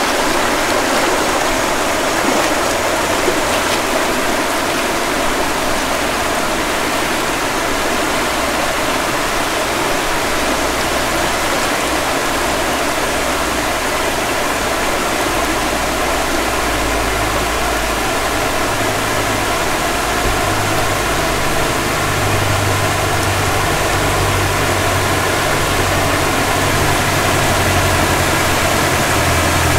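A stream running over rocks: a steady rush of water. From about halfway through, a low engine hum comes in beneath it and grows stronger toward the end.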